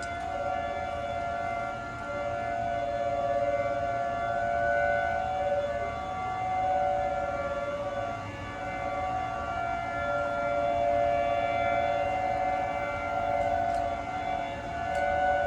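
Federal Signal 2T22 dual-tone outdoor warning siren sounding a steady test alert: two held notes together with overtones, swelling and dipping a little in loudness.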